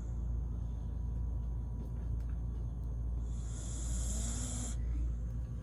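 Snoring in sleep: one long hissing snore breath with a low rise-and-fall tone, about three and a half seconds in, over a steady low hum.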